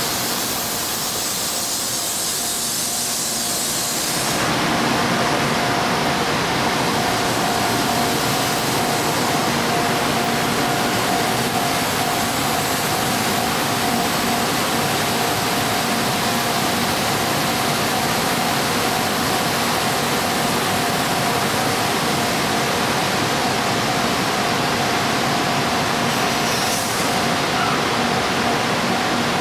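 N700A Shinkansen train rolling slowly past: a steady rushing noise with a constant hum running under it, and a shift in the hiss about four seconds in.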